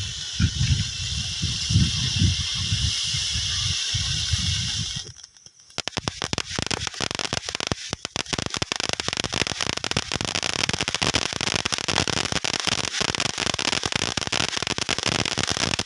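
Consumer fireworks going off. A firework hisses steadily with a low rumble underneath for about five seconds, then stops. After a short gap a dense, rapid crackling starts and runs for about ten seconds before cutting off.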